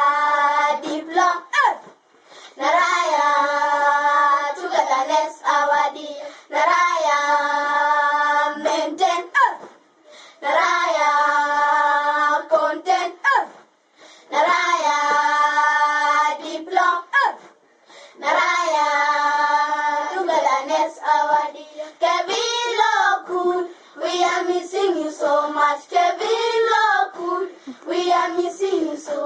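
A small group of children singing unaccompanied in sung phrases of long held notes with short breaks between them, and a few hand claps between phrases. In the last third the phrases turn shorter, with quick rising and falling notes.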